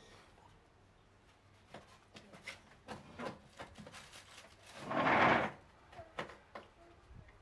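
A string of light knocks and clicks, with one louder rubbing scrape about five seconds in.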